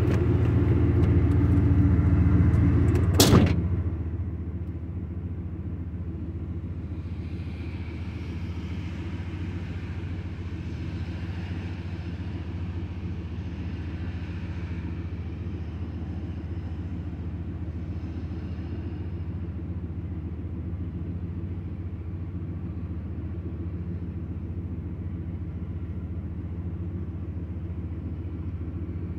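Parked vehicle's engine idling steadily, heard from inside the cabin. A car door shuts with a knock a little over three seconds in, after which the idle is more muffled.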